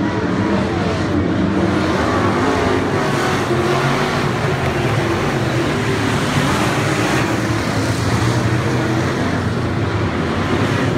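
A pack of dirt-track race cars running hard around the oval, their engines merging into one loud, steady drone.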